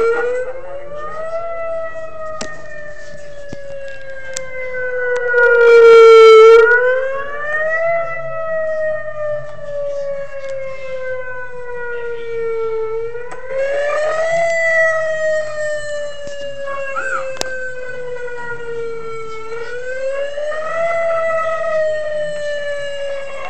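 Siren wail played through a small speaker fitted into a homemade horn of PVC pipe, paper and duct tape. It is a single tone with overtones that rises quickly and falls slowly, repeating about every six and a half seconds, and is loudest about six seconds in.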